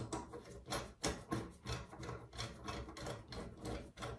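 A screwdriver tightening the screw of a cartridge puller tool fitted on a Moen 1225 faucet cartridge. It makes a run of short scraping, rasping strokes, about three a second.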